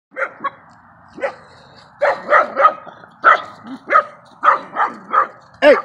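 Dogs at play barking in a rapid series of short, sharp barks, about a dozen in the few seconds.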